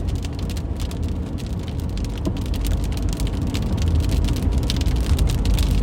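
Rain drops ticking on a moving car's roof and windshield over a steady low road and engine rumble inside the cabin. The rain grows slightly louder toward the end.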